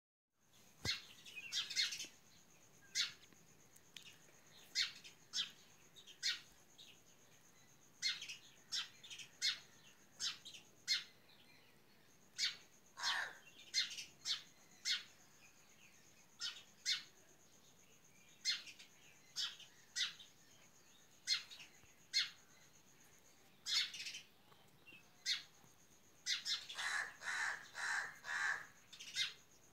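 Birds chirping: short, sharp chirps come every half second to a second, and a quick run of rapid calls follows near the end.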